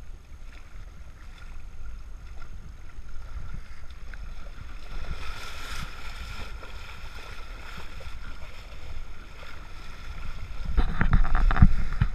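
Steady low rumble of a deep-sea fishing boat at sea, with wind on the microphone and a brief hiss about five seconds in. Near the end comes a quick run of loud knocks and thumps.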